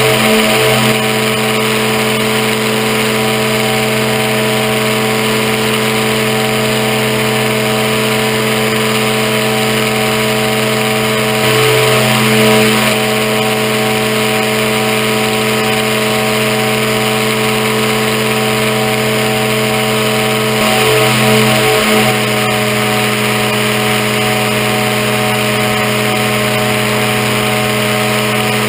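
Aerochute powered-parachute microlight's engine and propeller running steadily in flight, with wind hiss. Three times, at the start, about twelve seconds in and about twenty-one seconds in, the engine briefly gets louder and shifts in pitch.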